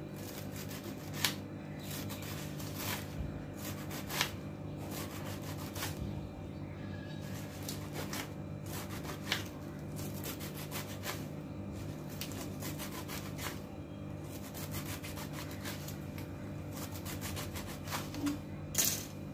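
Small kitchen knife finely slicing a bundle of spinach leaves on a wooden cutting board: a long run of quick, irregular cuts, each a soft crunch and tap of the blade on the board, a few landing harder.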